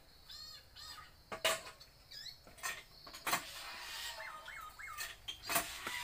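A man imitating bird calls with his mouth: a quick run of short chirps, a few whistled glides, and three quick rising-and-falling whistles near the end, broken by several sharp clicks.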